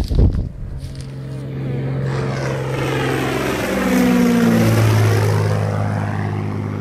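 Crop-spraying airplane's propeller engine flying past: a steady drone that drops in pitch about four seconds in as the plane goes by, after a couple of knocks at the start.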